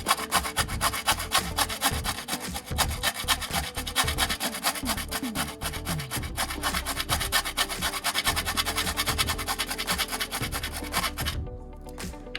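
Hand file rasping on a part of a clutch pedal assembly in rapid, repeated strokes, stopping about 11 seconds in.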